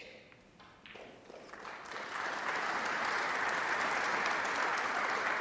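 Arena audience applauding. The applause swells over about a second, stays steady, then cuts off abruptly near the end.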